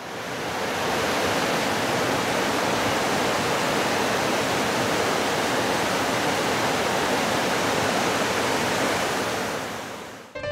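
Rushing river rapids: a steady wash of white water that fades in at the start and fades out near the end.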